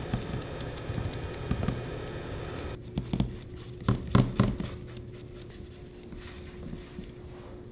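Gloved fingers pressing and rubbing pastry dough into a fluted metal tart pan, soft handling and scraping noises, with a few dull knocks about three and four seconds in.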